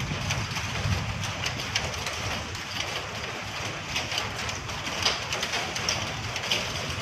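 Low steady rumble with scattered light ticks of rain and small volcanic stones falling during the Taal eruption's ashfall.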